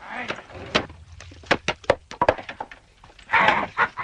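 Irregular sharp knocks and clacks, then a dog gives a loud bark near the end.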